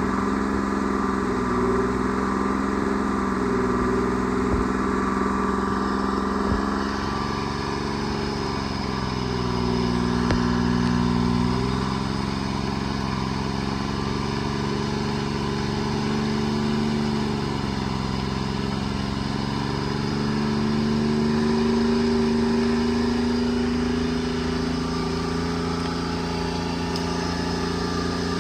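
Treefarmer C5 forwarder's engine running under changing load, its pitch stepping up and down every few seconds as the machine works the logs.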